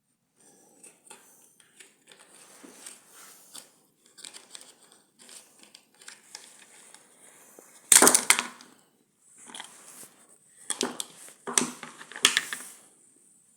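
Parts of a moped being handled and worked on with hand tools, with crinkling, scraping and knocking. A loud crunch comes about eight seconds in, and several more follow near the end.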